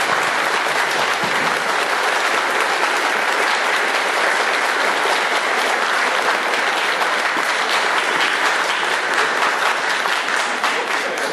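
Steady applause from many people clapping, easing off slightly near the end.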